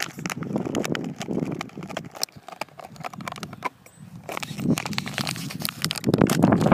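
A dog playing close by: a busy run of scuffling clicks and knocks over a low rough noise, loudest near the end.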